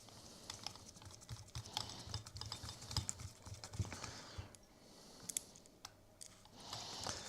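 Faint, irregular light clicks and taps of small metal parts being handled as an exhaust header is test-fitted to a model airplane engine.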